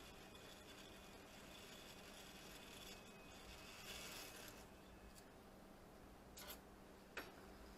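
Near silence with faint handling of the 3D printer's extruder parts: a brief faint rub about four seconds in and two small clicks near the end, over a faint low hum.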